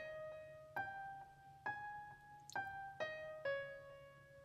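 Background piano music: a slow melody played one note at a time, each note struck and left to ring and fade.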